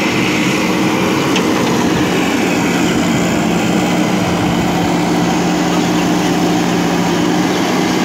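JCB backhoe loader's diesel engine running steadily, a constant even hum with no change in speed.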